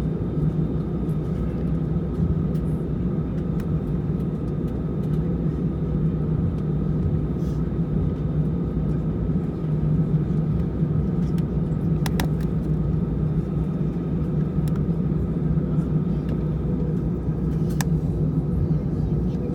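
Airbus A320 cabin noise on the ground before takeoff: a steady low rumble and hum of the jet engines at low thrust, with a couple of faint clicks or rattles about twelve and eighteen seconds in.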